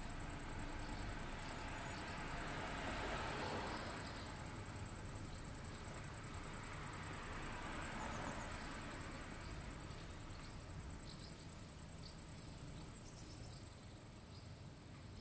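Night ambience of insects chirring steadily in a high, finely pulsing band, with two soft swells of background noise and a few faint short chirps near the end.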